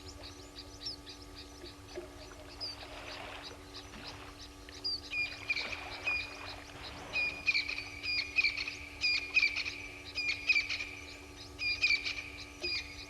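Birds calling at a waterhole. Over constant faint chirping, one bird repeats a short, clear call about once a second, starting about five seconds in and growing louder.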